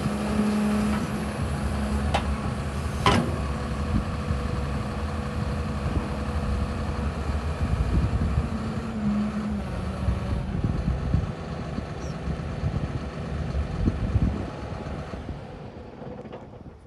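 CAT 320EL hydraulic excavator's diesel engine running steadily under hydraulic load as the boom and stick are worked, with a humming tone coming in at the start and again about halfway through. Two sharp metallic clunks about two and three seconds in; the sound fades near the end.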